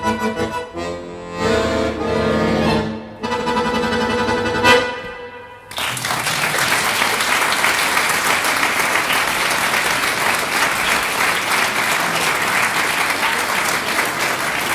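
Accordion playing the closing chords of the movement, ending on a sharp final accent that dies away about five and a half seconds in. Audience applause then breaks out and carries on steadily.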